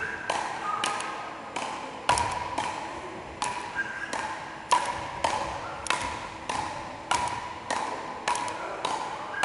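Frescobol rally: paddles striking the ball back and forth, a sharp crack about every 0.6 seconds. Each hit rings on briefly in the echo of a large sports hall.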